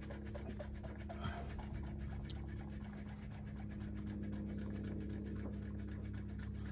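Hand-primer plunger on a 12-valve Cummins lift pump being worked in repeated strokes to bleed air from the fuel system, giving faint scratchy clicks over a steady hum.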